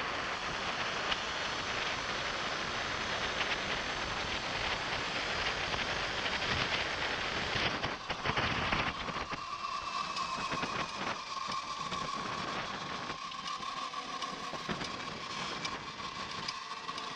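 Wind rushing over the handlebar camera's microphone as a Sur-Ron X electric dirt bike rides at speed. About eight seconds in the bike slows, the rush drops, and a steady high whine from the electric drivetrain comes through over the tyre noise.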